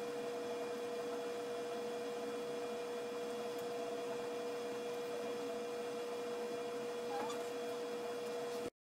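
Steady electrical hum: one constant tone over an even hiss, cutting off abruptly near the end.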